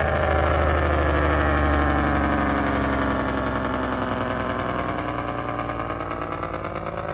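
Heavy truck diesel engine running steadily, its pitch sinking slowly over the first few seconds and then easing back up.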